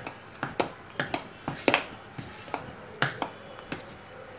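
Steel spoon stirring thick fermented ragi idli batter in a steel vessel, clinking against the pot's sides in repeated short knocks, two or three a second.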